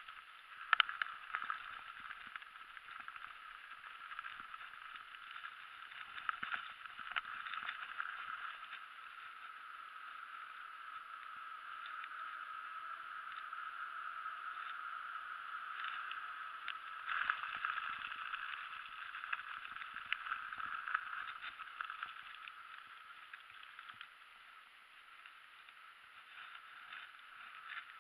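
Mountain bike rolling over a rough dirt trail: a steady rush of tyre and drivetrain noise, picked up at the handlebars, with scattered knocks and rattles from bumps. It gets louder and rougher in patches, most of all about two-thirds of the way in.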